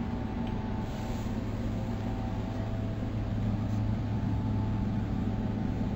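Steady low mechanical hum with a few faint higher tones over a background hiss.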